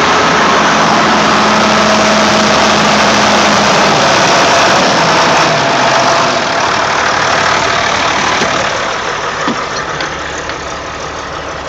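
John Deere 4240's six-cylinder turbo diesel idling steadily shortly after a cold start near freezing, with no block heater, starting fluid or glow plugs. It sounds somewhat quieter from about eight seconds in, heard from inside the cab.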